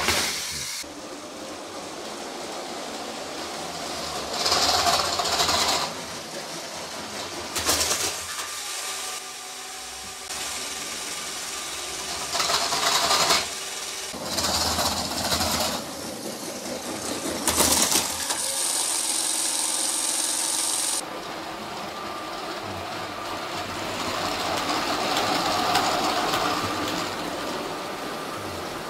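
Lego toy trains running on plastic track: electric motors whirring and wheels clattering along the track, louder in swells as trains pass close. The sound changes abruptly several times, with a few short knocks.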